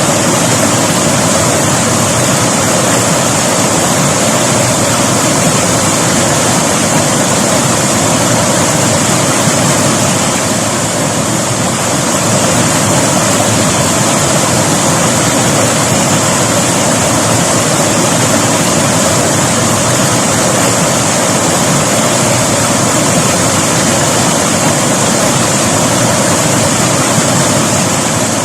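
River water rushing steadily over rocks, a dense, even rush of flowing water.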